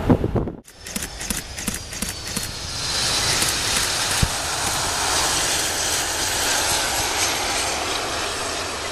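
Boeing 737-300's CFM56 turbofan engines on arrival: a steady jet roar builds about three seconds in, with a high whine falling in pitch over the first few seconds.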